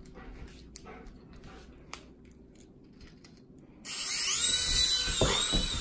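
The small electric motor and propellers of a hand-held levitating toy helicopter start up suddenly about four seconds in: a high whirring whine whose pitch dips and rises again near the end. Before that, only faint room sounds with a few light clicks.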